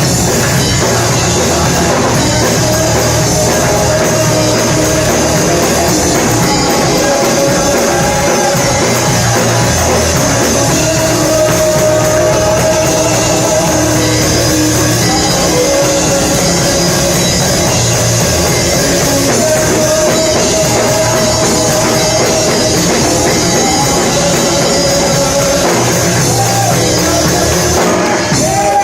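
Live church worship music: a band with drum kit playing loudly, with long held sung notes over it.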